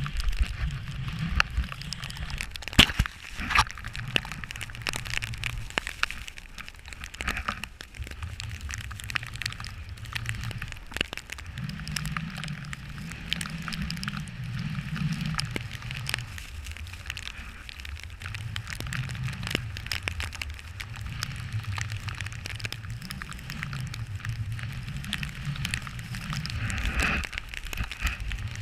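Snowboard riding on snow heard through a GoPro's waterproof housing: a low wind rumble that swells and fades every few seconds, under a steady crackly scraping hiss from the board on the snow, with scattered sharp clicks.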